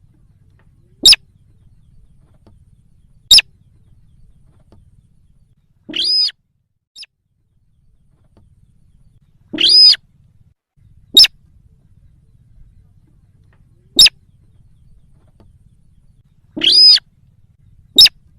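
Sintar lure call (pikat sintar) used to draw wild sintar in: short, sharp, high call notes every two to three seconds. Three longer, fuller calls of about half a second come in among them, about six, ten and seventeen seconds in.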